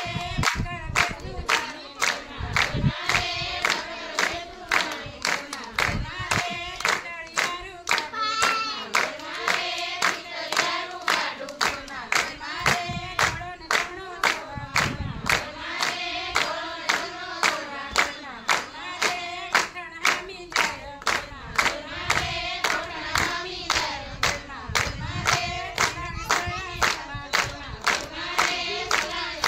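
A group singing a Gujarati Gor Maa devotional song together, with steady hand-clapping on the beat, roughly one and a half to two claps a second.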